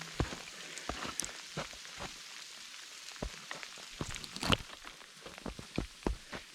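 Small snow pellets (graupel) pattering in irregular ticks, mixed with crunching footsteps on frozen ground. The loudest tick comes about four and a half seconds in.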